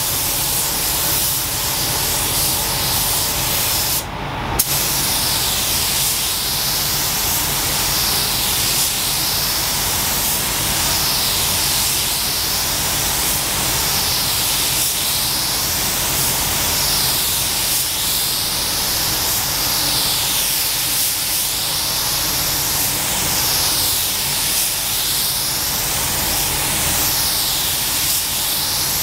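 Compressed-air paint spray gun spraying paint onto a car body: a steady hiss of air and atomised paint, cut briefly about four seconds in. Its hiss swells and fades in a regular pattern about every two seconds.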